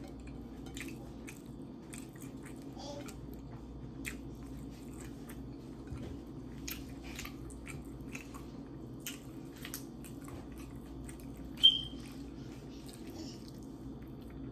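Close-miked chewing and biting of food, with scattered short wet mouth clicks. A brief, sharp, high-pitched sound stands out about twelve seconds in, the loudest moment.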